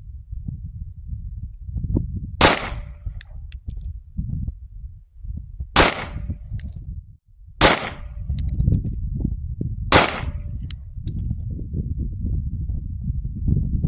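Four pistol shots from a 1911, spaced a few seconds apart, each followed by a brief metallic ring, over a steady low rumble.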